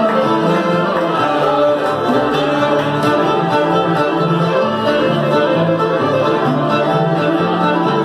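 Old-time string band playing a fiddle tune live: several fiddles carry the melody together over steady guitar and upright bass backing.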